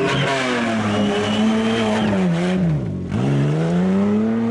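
Off-road 4x4's engine revving hard under load as it climbs through a competition course. The revs sag to a low point about three seconds in, then climb again.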